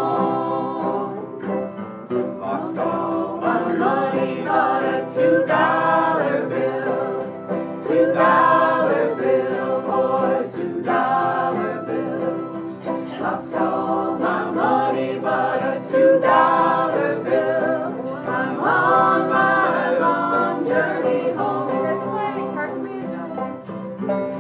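Group of acoustic guitars and other plucked strings playing a folk tune in bluegrass style, a steady run of picked and strummed notes between sung verses.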